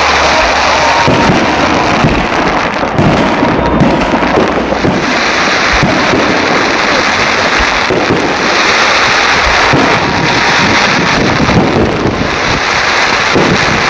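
Fireworks display: a dense, continuous barrage of bursts, many bangs running into one another without a pause.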